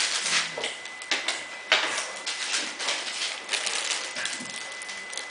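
Cardigan Welsh corgi puppies scuffling at play: irregular scratching and scrabbling of paws and claws on rug and tile, with a sharp click a little under two seconds in.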